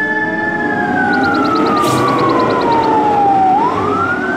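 Fire engine siren sounding a slow wail: the pitch slides down over about three seconds, then climbs again near the end.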